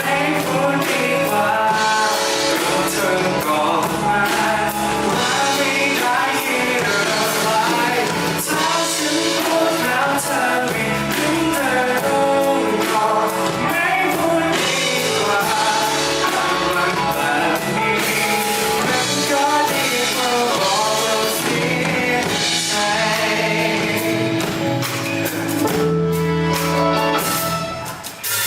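Live band music with singing over it; the sound dips briefly just before the end.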